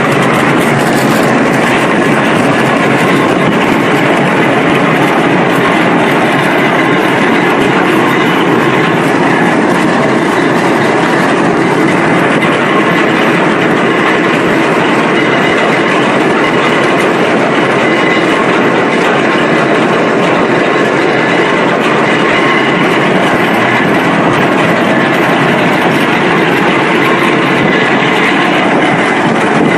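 Rotary water-well drilling rig running: a loud, steady machinery noise with faint steady whines above it.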